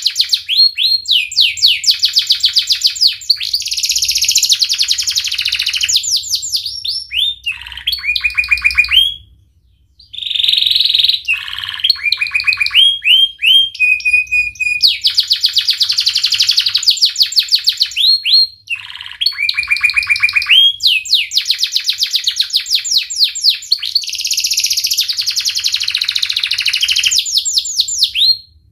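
Domestic canary singing a long song of fast trills, each made of quickly repeated rising notes, phrase after phrase, with a brief pause about ten seconds in.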